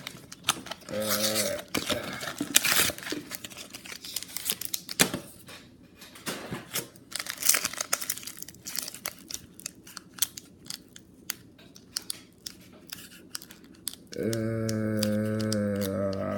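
Foil wrapper of a Pokémon booster pack being torn and crinkled open by hand in a long run of sharp rips and crackles, the pack resisting being opened. A steady low hum starts about two seconds before the end.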